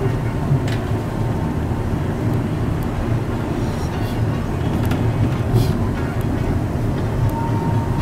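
Running noise of a Yokohama Seaside Line rubber-tyred automated guideway train at speed, heard from inside: a steady low rumble with a few faint clicks.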